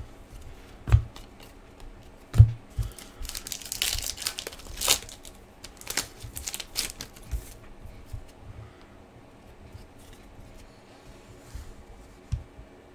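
A trading-card pack wrapper from a Fleer Showcase hockey hobby box being torn open and crinkled, with the cards then handled and laid on a table. Two short thumps come in the first few seconds. The crinkling is loudest about four to five seconds in and then fades to light handling noise.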